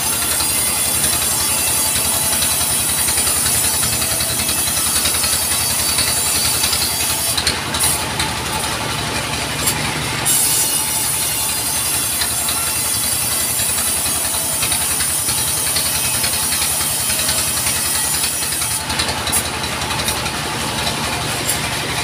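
Vertical band sawmill running steadily, its drive throbbing low while the blade cuts through a log with a high hiss. The cutting hiss drops out twice, about a third of the way in and again near the end, leaving only the machine running.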